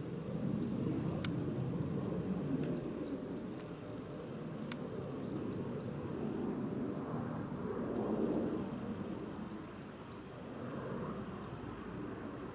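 Distant jet rumble from a Boeing 737-400 airliner passing high overhead, swelling and easing. A small bird chirps over it in quick runs of two or three short high notes, four times.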